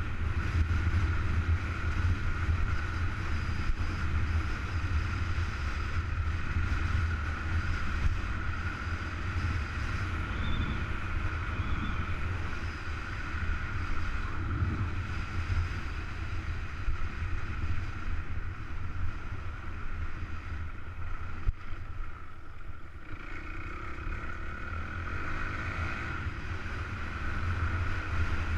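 Enduro motorcycle engine running steadily under way on a dirt track, heard from a camera mounted on the bike, with wind noise mixed in. The engine eases off briefly about three-quarters of the way through, then picks up again.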